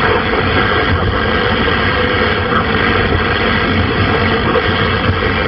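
Steady hiss of static from a CB radio receiver on single sideband, with no station answering a long-distance call, over the low rumble of the car on the road.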